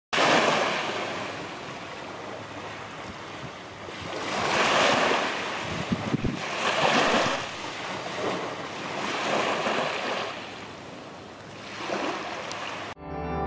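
Small sea waves breaking and washing up on a sandy beach. The surf swells and fades in surges every two to three seconds.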